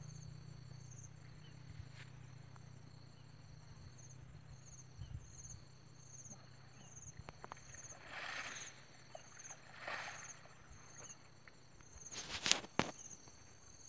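Insects chirping in a steady rhythm of short high-pitched pulses, a bit under two a second. A couple of brief rushing noises come midway, and a sharp knock near the end is the loudest sound.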